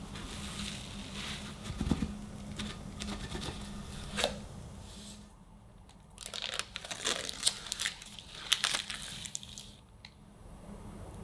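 Parchment paper lining crinkling and tearing as it is peeled off the side of a baked chocolate sponge cake, in clusters of crisp crackles that are densest in the second half. A dull knock about two seconds in as the cake tin comes down on the wire cooling rack.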